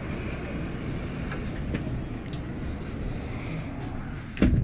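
Steady city road-traffic noise through an open balcony door, then a sliding glass door thuds shut near the end, shutting the traffic noise out.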